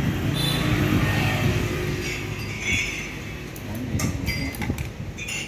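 A motor vehicle's engine running and passing by, with a few light clinks of bowls and utensils in the second half.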